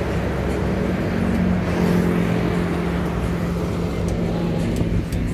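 Engine and road noise of a moving vehicle heard from inside the cabin, with a steady engine hum from about a second in until near the end.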